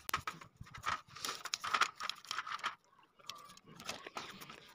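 Toothbrush bristles scrubbing a small motorcycle carburetor body: quick, irregular scratchy strokes, with a short pause about three seconds in.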